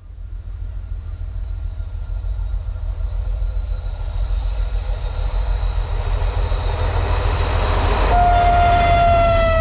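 A TEM2 diesel shunting locomotive running light toward the listener, its engine and wheel rumble growing louder as it nears, with a faint whistle tone held in the background. About eight seconds in, its whistle sounds loud and steady, sagging slightly in pitch as the locomotive comes past.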